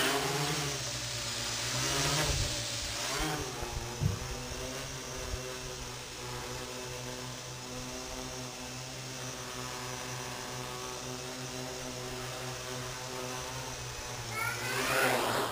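Small quadcopter's motors and propellers buzzing, wavering in pitch for the first few seconds as it manoeuvres, then holding a steady hum that stops near the end. A brief burst of high chirping comes just before it stops.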